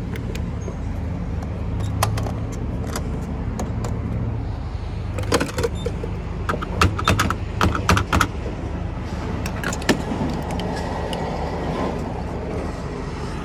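Car engine running steadily with a low hum, with a cluster of sharp clicks and rattles about five to eight seconds in.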